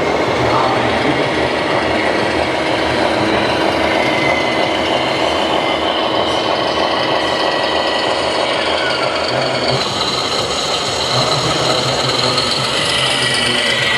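Radio-controlled scale-model construction machines at work: small motors whine, sliding up and down in pitch as they speed up and slow down, over a steady mechanical rattle.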